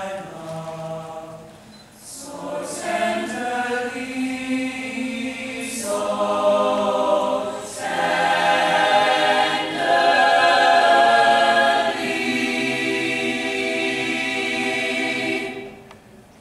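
Mixed high school chamber choir singing the closing phrases of a slow ballad in several swelling phrases, loudest near the middle, ending on a held chord that is released cleanly about a second before the end.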